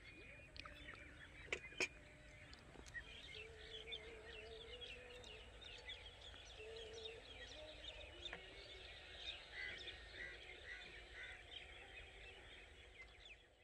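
Faint chorus of many small birds chirping, with a lower, wavering drawn-out call for a couple of seconds near the middle and two soft clicks about two seconds in.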